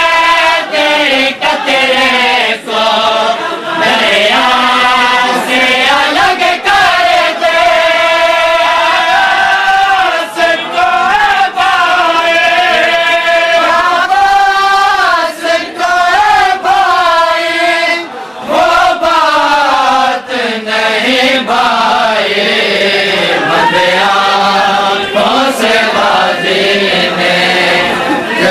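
A group of men chanting a nauha, a Shia mourning lament, together in a slow, rising and falling melody. The chant is continuous and loud, with short pauses for breath.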